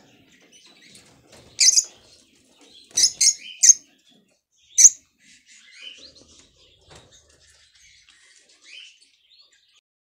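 Peach-faced lovebirds chirping in short, shrill calls: one about a second and a half in, three quick ones around three seconds, the loudest near five seconds, then fainter scattered chirps.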